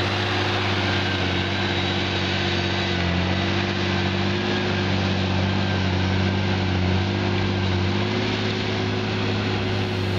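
Deutz-Fahr tractor's diesel engine running steadily under load while pulling a reversible mounted plough through the soil, its note shifting slightly a couple of times.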